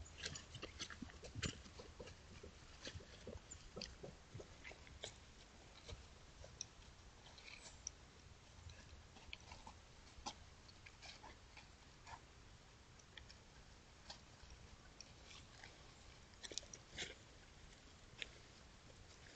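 Faint, irregular crackles and ticks of dry leaf litter as dogs walk and sniff about, busiest in the first couple of seconds and again about two-thirds of the way through.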